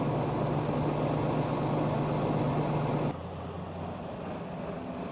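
Modern fire engine's engine idling steadily close by. About three seconds in, the sound cuts to a fainter, lower engine hum as an antique fire engine drives along a road at a distance.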